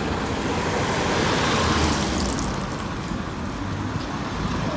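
Road traffic noise: a motor vehicle passes by, growing louder to a peak about a second and a half in and then fading, over a low rumble.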